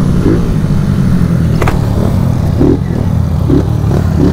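Two single-cylinder four-stroke motorcycles, a Honda Fan 160 and a Titan 150 with a performance cam, running together at road speed. Their engine note is steady and loud, mixed with rushing air.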